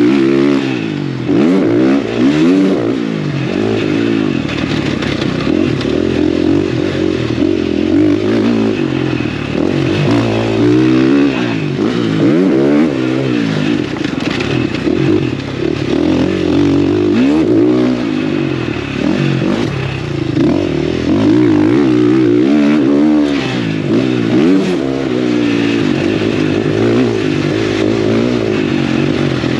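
Motocross bike engine heard up close from the bike, revving hard and easing off over and over, its pitch climbing and dropping repeatedly as the throttle opens and closes.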